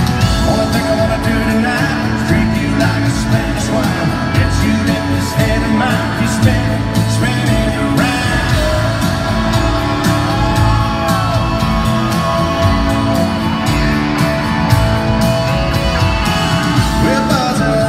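Live country band performance: a male lead vocal singing over acoustic guitar and full band, loud and continuous.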